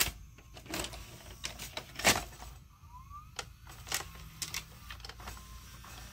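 JVC HM-DH40000U D-VHS deck's cassette loading mechanism clicking and clacking as a tape is reloaded. The loudest clack comes about two seconds in, and a brief rising motor whine follows about three seconds in.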